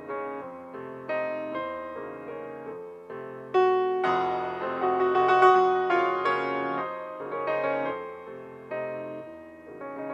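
Solo piano music: notes and chords struck and left to decay, growing louder and busier from about three and a half to seven seconds in, then easing back.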